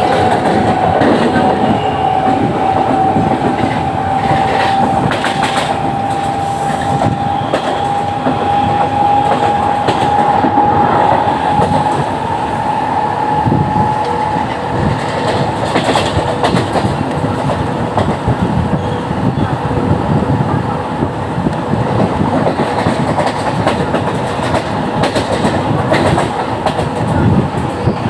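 Train running along the track between stations, its wheels clacking irregularly over the rail joints. A thin whine rises slowly in pitch through the first half, and a lower steady whine carries on after it.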